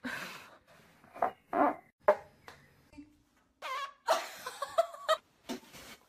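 A person farting, amid bursts of laughter; a run of separate short sounds, one a brief steady low toot about three seconds in.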